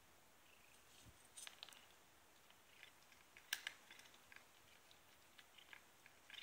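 Cat crunching dry kibble: faint, scattered crisp crunches, the loudest about three and a half seconds in.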